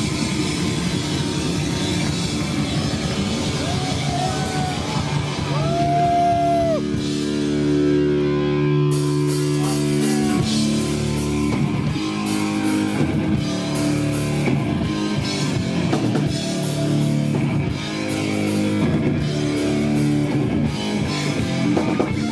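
Thrash metal band playing loud live: distorted electric guitars, bass and a pounding drum kit. A few sliding high notes come about four to six seconds in, and the cymbals and drums get denser from about nine seconds on.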